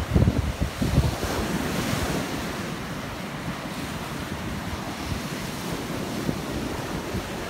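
Ocean surf breaking and washing over a rock jetty, with a wave rushing in about a second in. Wind buffets the microphone.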